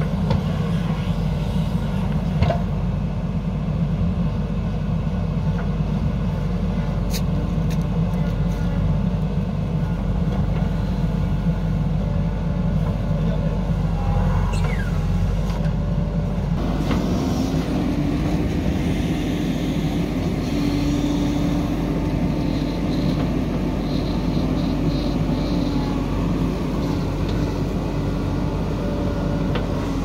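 JCB backhoe loader's diesel engine running steadily under load while it digs and loads soil, with a change in the engine note and a higher hum coming in a little past halfway.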